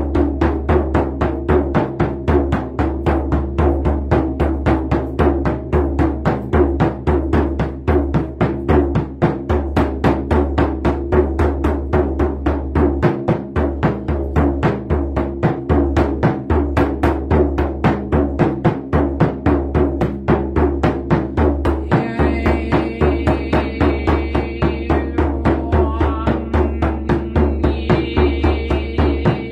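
Hand drum beaten in a steady, even rhythm of about three to four strikes a second, each with a deep boom. In the last third a higher, wavering sound joins in at times.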